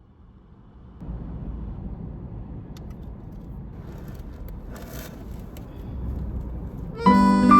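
Low rumbling noise like a car on the road, rising about a second in, with a few faint clicks and a brief hiss about five seconds in. Music comes in loudly near the end.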